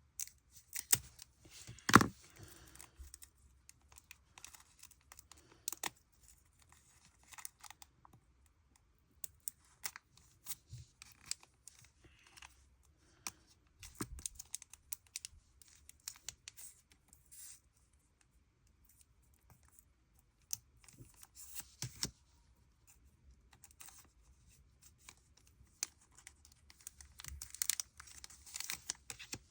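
Plastic wrapper of a trading-card pack being worked at, torn and crinkled open by hand in short, stop-start rustles and clicks, the loudest snap about two seconds in, and a longer run of crinkling near the end.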